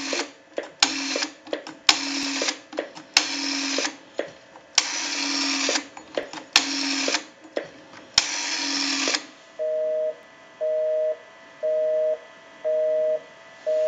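The rotary dial of an Automatic Electric three-slot payphone is turned and let run back about seven times as a phone number is dialed, each return a short whir with clicks. About two-thirds of the way through, a busy signal starts beeping about once a second.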